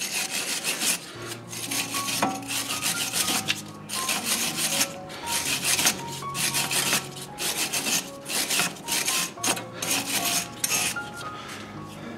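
Repeated hand scrubbing strokes on the rusty mounting face of a car's front wheel hub, cleaning it before a new brake disc goes on, over background music.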